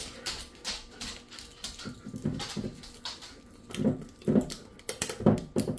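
Irregular crinkling and clicking of a thin plastic seal being worked and peeled off the top of a jar by hand, with a few louder short low sounds in the second half.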